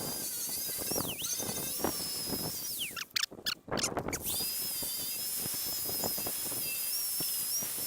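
High-speed power tool with an abrasive disc whining as it grinds paint off a steel truck frame down to bare metal. The whine sags briefly about a second in, stops around three seconds in, and starts up again about a second later.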